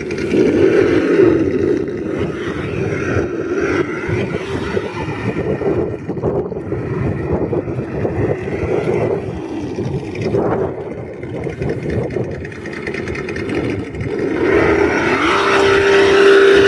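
Axial Bomber RC truck being driven, its motor sound rising and falling in pitch with the throttle. Near the end it holds a steady tone, then drops away.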